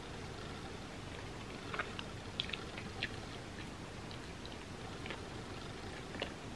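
A person chewing a mouthful of chocolate peanut butter pie with a soft crust, mouth closed: small wet mouth clicks and crackles scattered over a steady hiss, grouped most closely about two to three seconds in.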